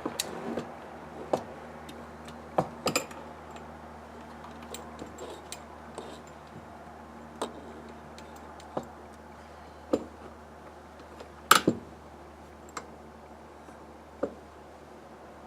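Scattered light metallic clicks and clinks of hand tools and small parts during hand disassembly of a carburetor, irregular and a second or more apart, with one sharper clink a few seconds before the end, over a steady low hum.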